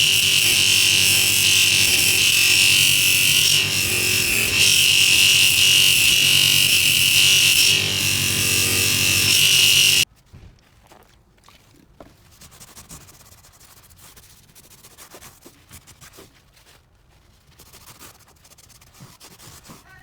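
A power tool's motor running steadily with metal being worked against it, loud, then cutting off suddenly about halfway through. After that come faint, irregular scraping strokes of metal being worked by hand.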